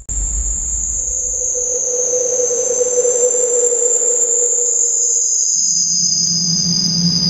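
Eerie horror soundtrack drone: a shrill, high sustained tone that sinks slowly in pitch. A steadier mid tone sounds through the middle, and a low droning tone comes in about two-thirds of the way through.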